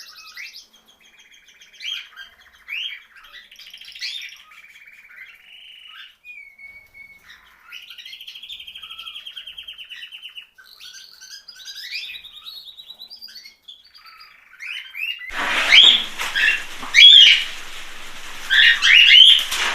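Small cage songbirds singing, warbling phrases with a rapid rattling trill. About fifteen seconds in, louder, closer chirps and calls break in over a steady hiss.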